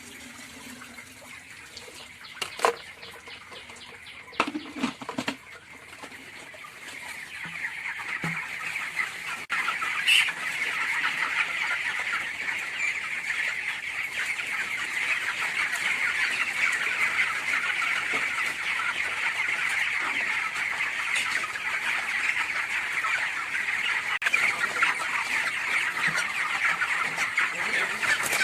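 A large flock of young broiler chickens in a poultry shed making a dense, continuous chorus of cheeping and clucking. It grows louder about a third of the way in, after a few sharp knocks.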